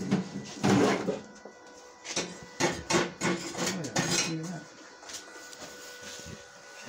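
Metal clinks and knocks from steel and tools being handled, a run of sharp strikes through the first half that dies down after that, over a faint steady whine.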